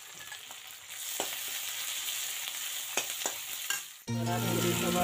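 Chopped onions and green chillies sizzling in hot oil in a metal kadai, with a few sharp clicks of a metal ladle against the pan. About four seconds in the sizzling cuts off abruptly and background music begins.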